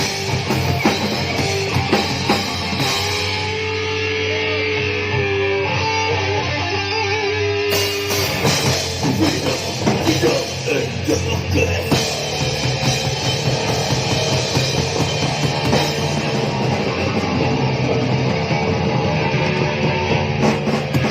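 Live crust punk band playing loud distorted electric guitar, bass and drums. A few seconds in the cymbals drop out under a held, wavering guitar note, and the full band comes back in about eight seconds in.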